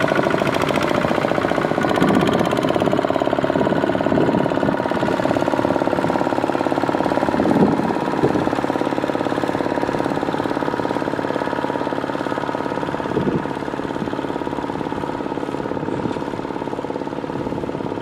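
Kubota ZT155 single-cylinder diesel engine of a walking tractor running steadily under tilling load, with a rapid, even firing beat. There are a couple of brief knocks, and the engine grows a little fainter near the end.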